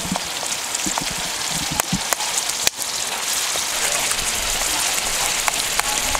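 Chopped tomatoes and onions sizzling in oil in a frying pan over a wood fire: a steady frying hiss with many small scattered pops.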